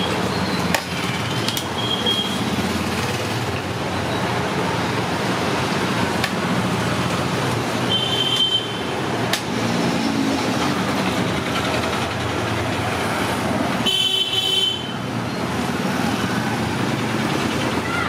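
Steady road-traffic noise with short vehicle-horn toots, the clearest about eight and fourteen seconds in.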